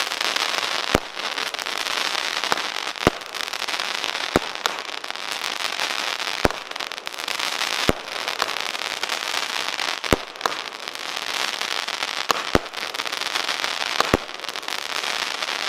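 Nico Time Rain 13-shot firework battery firing: a sharp bang every one to two seconds over a steady, dense crackling hiss from the bursting effects.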